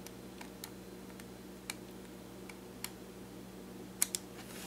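Faint, irregular clicks of a small 00 Phillips screwdriver turning a tiny screw out of the drone's plastic gimbal housing, with two sharper clicks about four seconds in, over a steady low hum.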